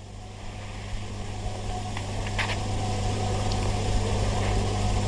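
Steady low electrical hum with hiss from the recording chain, slowly growing louder over the first couple of seconds and then holding, with a couple of faint clicks around the middle.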